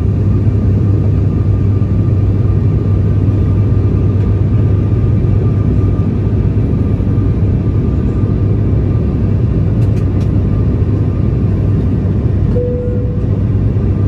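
Airliner cabin noise in flight: a steady, loud drone of the engines and airflow with a deep hum underneath. A short faint tone sounds near the end.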